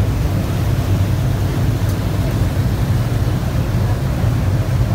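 Tour boat's engine running steadily under way, a low drone, with water rushing along the hull and wind.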